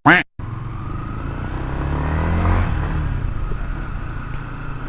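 Motorcycle engine under way, its pitch rising as it accelerates for a second or two and then easing back, with a rush of wind noise. A short, loud sound at the very start.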